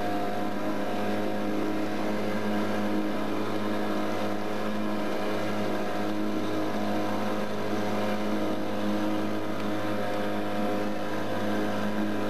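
Boat engine running at a steady speed, an even drone that holds one pitch without change.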